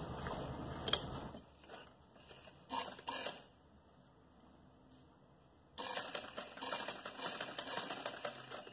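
Domestic sewing machine stitching in two runs. It runs for about a second and a half and stops, two short clicks come during the pause, and then it runs again for about three seconds near the end.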